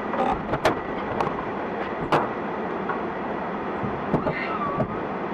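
Steady road and engine noise of a moving car, heard from inside the cabin, with a few sharp clicks or knocks, the loudest about a second in and about two seconds in.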